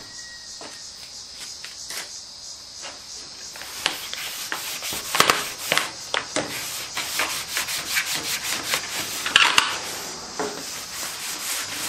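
Gray scuff pad, loaded with soap, scrubbing a plastic interior car trim piece: quick back-and-forth rasping strokes, faint at first and louder from about four seconds in. This is the scuffing step that cleans and dulls the plastic before it is painted.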